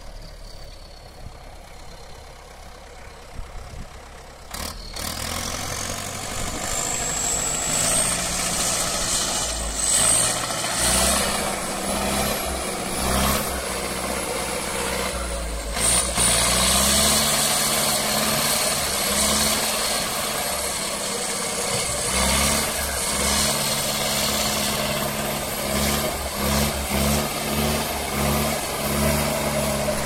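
Zetor 10245 tractor's turbocharged diesel engine running under throttle, its turbocharger whistle rising steeply in pitch about four seconds in and then staying high. The engine note steps up and down with the throttle, with a string of quick revs near the end.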